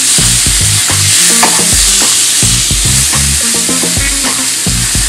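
Cheese-stuffed hamburger-meat rolls sizzling steadily in a nonstick frying pan, with a metal fork turning them over and scraping the pan.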